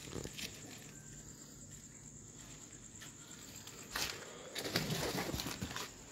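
Handling noise: fabric rustling and brushing against a handheld phone's microphone. It stays faint for about four seconds, then a knock is followed by about a second of scuffing and rustling.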